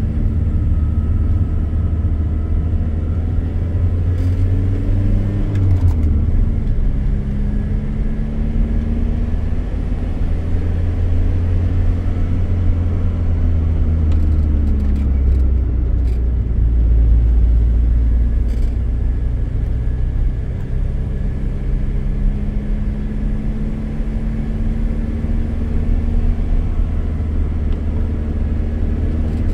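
VW Golf Mk2's 1.6-litre four-cylinder diesel engine heard from inside the cabin, pulling uphill. Its pitch climbs and then drops back at a gear change about six seconds in, and again around fifteen seconds in.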